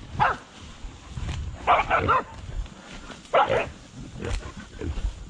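Hunting dogs barking at a wild boar: one bark, then short bunches of barks about two seconds in and again about three and a half seconds in.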